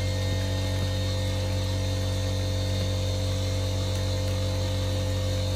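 A steady, unchanging low hum with several fainter steady higher tones above it, over a light hiss.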